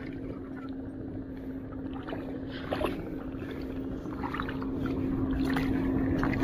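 Shallow sea water sloshing with light splashes and scattered small clicks, over a steady low hum; it grows a little louder about five seconds in.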